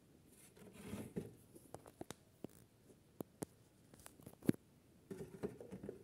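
Light handling noises from a toy washing machine being turned over: scattered small clicks and taps with brief scraping, and one louder knock about four and a half seconds in.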